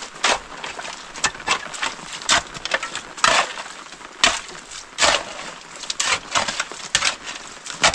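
Short-handled shovel digging into wet, muddy soil: about a dozen uneven scraping and chopping strokes, roughly one every half second to a second.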